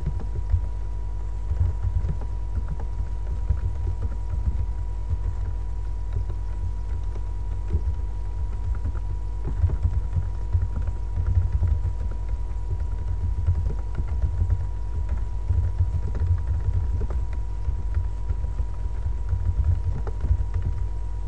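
Typing on a computer keyboard: irregular key clicks at an uneven pace. Under them runs a steady low hum, with a faint constant high whine.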